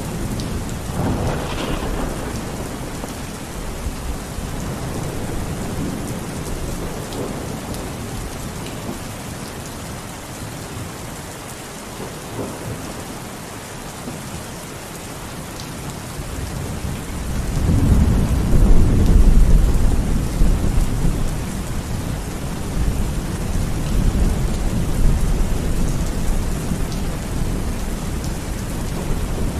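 Steady rain falling, with rolls of thunder; a loud, deep rumble of thunder swells about two-thirds of the way through and then fades back into the rain.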